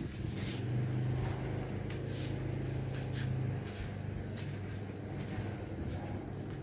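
Small electric motor of a mini ceiling fan running with a steady low hum, which eases a little past the middle, under a few light clicks. A bird chirps briefly twice in the background.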